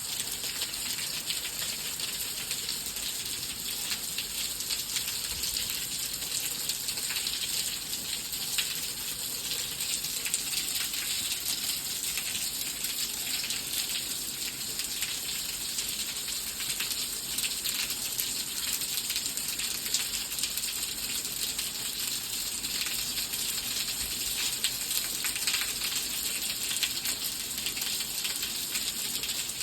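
Steady rain falling, a dense patter of drop hits with no let-up.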